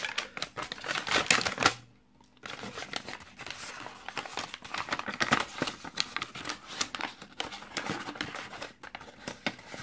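Folded paper wrapper rustling and crinkling in the hands as it is unfolded, with a brief pause about two seconds in.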